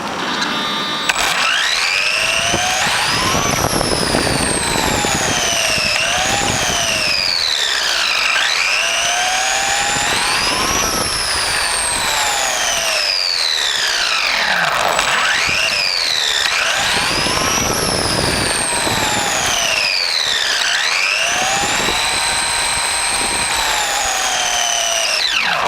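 Electric motor and drivetrain of a Team Associated B44 RC buggy, heard from on board: a whine that climbs and falls in pitch over and over as the car speeds up and slows down, over a steady rough noise.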